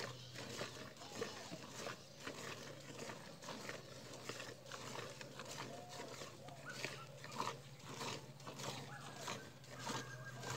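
Hand-milking of a cow into a steel bucket: milk squirting from the teats into the pail in a steady rhythm of short hissing spurts, about two or three a second.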